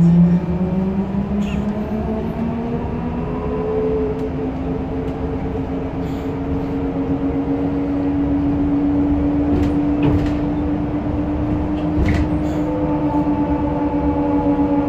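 Trolleybus electric traction motor whining inside the cabin, rising in pitch over the first few seconds as it speeds up, then holding steady, with a second, higher whine joining near the end. Road rumble runs underneath, with a few sharp knocks and rattles.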